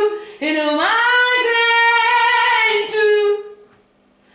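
A woman singing a jazz phrase: after a brief break just after the start, her voice swoops up into held notes and then fades out about three and a half seconds in.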